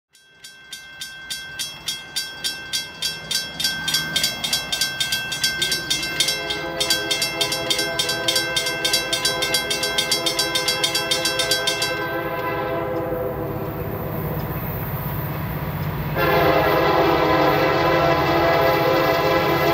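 Railroad crossing bell ringing in fast, even dings, about two to three a second, while the gates come down; it stops about twelve seconds in. An approaching freight locomotive's horn starts sounding about six seconds in and blows much louder near the end, over a low engine rumble.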